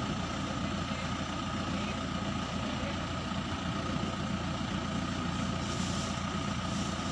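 Truck engine of a truck-mounted crane running steadily, with a constant high whine over the low rumble.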